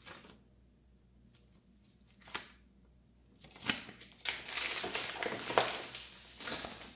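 A few faint paper rustles, then from about halfway a run of loud plastic wrapping crinkling and rustling as it is pulled off the cameras in the box.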